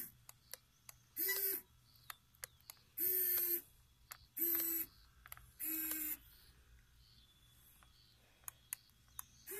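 RC4WD Warn Zeon 10 1/8-scale winch motor whining in four short bursts of about half a second each, reeling in line to pull a rolled-over RC crawler back onto its wheels.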